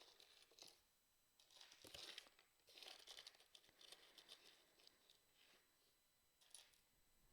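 Faint rustling and scattered light clicks of small loose costume jewelry pieces, earrings and beads, being moved and sorted by hand, with a couple of slightly louder rustles a few seconds in.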